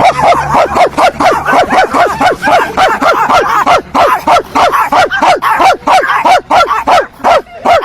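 A man barking like a dog, a fast unbroken run of short barks, about four a second, each dropping in pitch.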